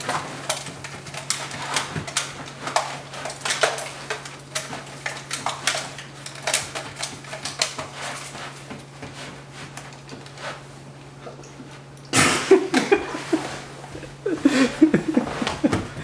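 Small plastic clicks and rattles from fumbling with a corded telephone handset and its coiled cord, over a steady low hum. It turns louder about twelve seconds in, and laughter breaks out near the end.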